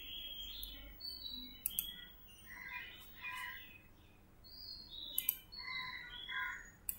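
Faint bird chirps: many short, high calls scattered through, with a few sharp clicks.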